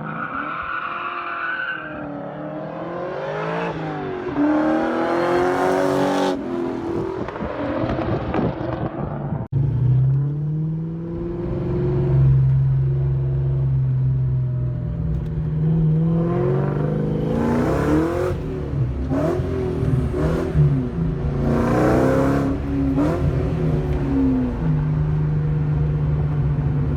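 2004 Ford Mustang SVT Cobra's supercharged 4.6-litre V8 being driven, its pitch rising and falling repeatedly as it accelerates and shifts, then holding steady near the end.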